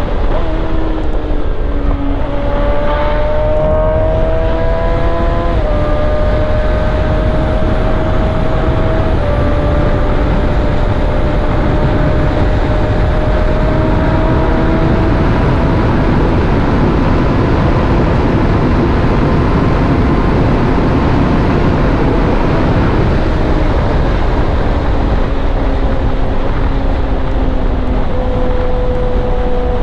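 Motorcycle engine running at riding speed under heavy, steady wind noise, its pitch drifting slowly up and down with a few small steps.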